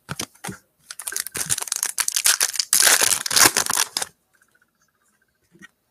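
A trading-card pack wrapper being torn open and crinkled in the hands, a dense crackling rustle that stops about four seconds in, followed by a few faint clicks.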